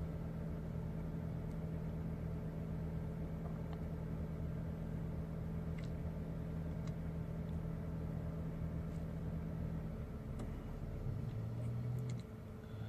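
Electric kitchen blender running steadily with a low motor hum while it blends a chicken liver, onion and egg mixture, then switching off about ten seconds in.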